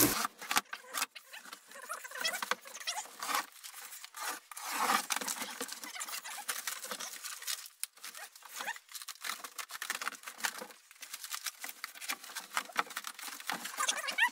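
Utility knife cutting through a corrugated cardboard box, with irregular scratching, crackling and rustling as the cardboard is sliced and pulled apart.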